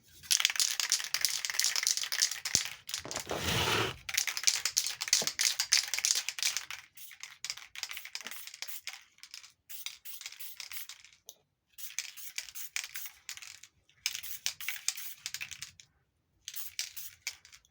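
Aerosol spray-paint can hissing as it sprays a rebuilt vacuum advance unit: one long spray over the first several seconds, then a few shorter squirts.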